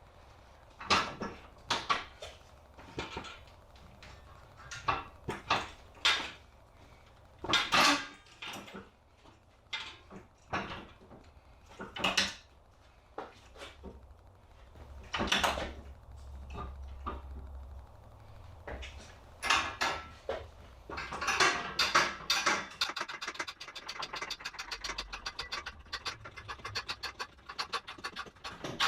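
Small metal tools and parts being handled: irregular clinks, clicks and knocks, then a fast run of rapid ticks in the last several seconds.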